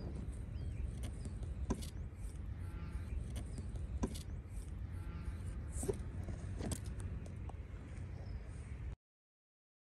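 Outdoor background noise: a steady low rumble with a few sharp clicks scattered through it, cutting off abruptly near the end.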